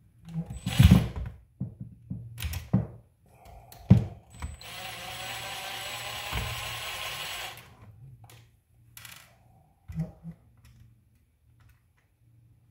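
Clicks and knocks of small RC car parts being handled, with a sharp knock about a third of the way in. Then a small electric screwdriver or drill runs steadily for about three seconds, then stops.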